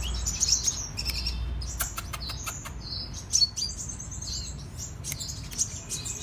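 Sunbird (kolibri raja) singing: a fast run of high chirps and clicking notes, the loudest about three and a half seconds in.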